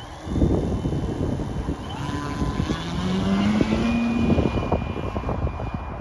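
Radio-controlled Flex Innovations Extra 300 aerobatic plane flying, its motor and propeller whining, the pitch rising about three to four seconds in. Heavy wind rumbles on the microphone.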